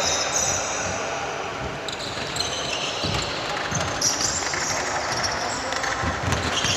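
Basketball bouncing on a court during a game: a few dull thumps, with high squeaks over them.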